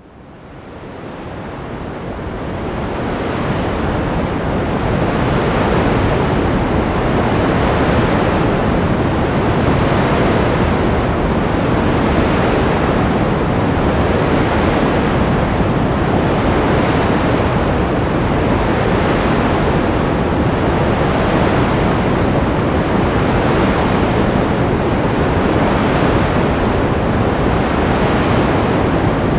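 Ocean surf: a dense, steady wash of breaking waves that fades in over the first few seconds, then holds even with gentle swells.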